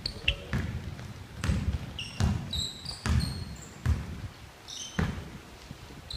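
Basketball bouncing on a hardwood gym floor as it is dribbled and moved up the court, an irregular run of thuds, with sneakers squeaking on the floor in short high chirps between them.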